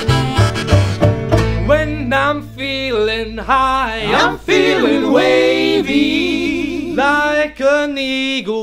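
Live Americana band playing banjo, acoustic guitar, double bass and harmonica. About a second and a half in the instruments drop out and the band sings unaccompanied in close harmony, with long held notes.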